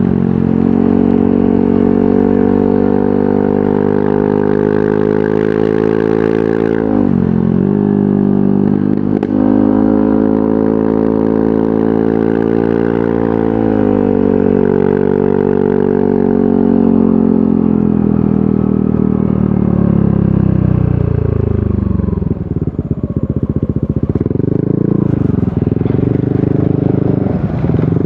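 Yamaha NMAX 155 scooter's single-cylinder engine running through a VMAX Onyx aftermarket muffler while riding, at a steady pitch with a brief dip about seven seconds in. From about eighteen seconds the pitch falls away as it slows, then it rises and falls in short swells of throttle near the end.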